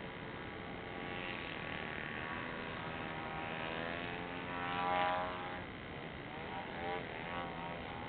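A powered aircraft flying past, its engine note growing louder to a peak about five seconds in, shifting in pitch as it passes, then fading.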